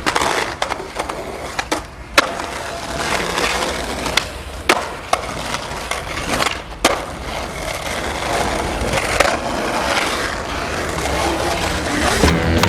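Skateboard wheels rolling on pavement with a steady rumble, broken by sharp clacks and knocks of the board several times.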